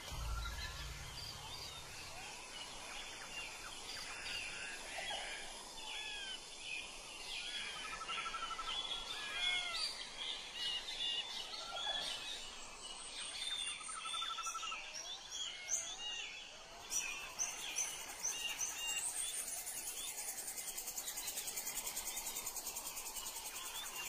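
Forest birds singing, many short chirps and whistles overlapping. About two-thirds of the way in, an insect starts a high, fast, evenly pulsed trill that carries on to the end.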